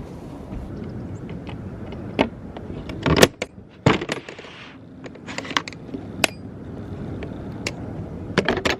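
A run of sharp clicks and knocks, like small hard objects being handled, loudest in a cluster about three seconds in and again near the end, over a steady low rumble that drops away briefly about four seconds in.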